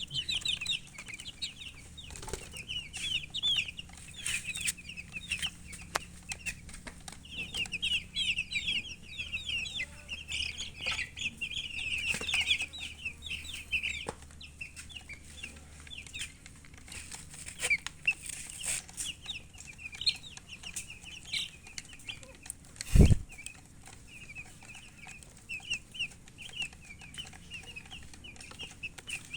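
Baby chicks peeping: many short, high chirps overlapping almost without a break, busiest in the first half. About two-thirds of the way through there is a single loud thump.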